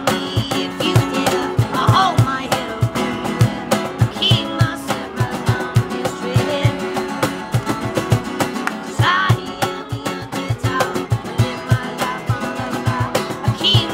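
Live busker music: a strummed guitar over a steady low beat of about three thumps a second.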